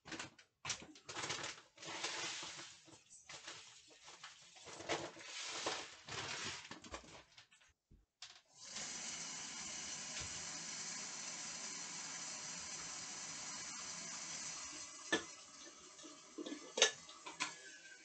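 Kitchen work at the counter and stove. Irregular rushing and clattering come first, then a steady hiss starts about eight and a half seconds in and drops away around fifteen seconds, followed by a few sharp clicks.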